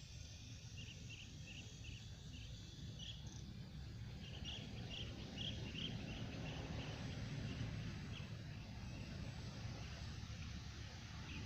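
Short high chirps of a small animal repeating about three times a second, fading in and out, over a steady low rumble.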